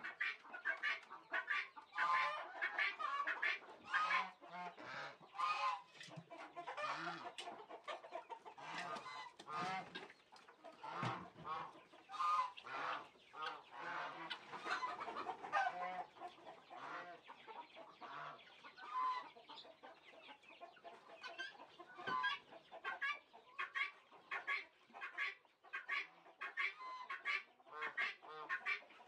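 A flock of chickens clucking continuously, many short overlapping calls, with geese calling among them.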